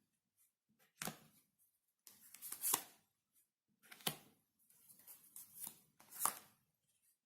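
Tarot cards being shuffled and laid down on a table: a few separate bursts of papery rustling, each ending in a sharp slap of cards.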